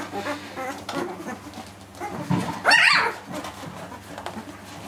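Eleven-day-old puppies squeaking and whimpering as they crawl over one another, with one puppy letting out a loud, high, wavering cry a little before halfway through.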